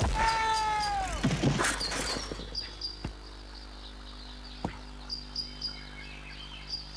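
Outdoor ambience of steady high-pitched chirping, repeated in small quick groups. It opens with a pitched tone that slides downward over about a second, followed by a short rushing noise and two brief knocks.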